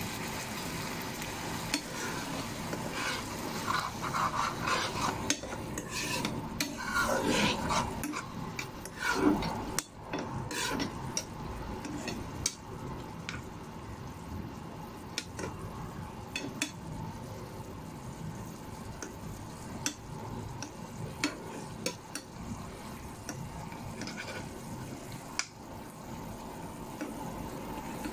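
A metal spoon stirring diced pork in a non-stick frying pan, scraping and clicking against the pan, busiest in the first ten seconds. Under it the pork sizzles steadily in its juices.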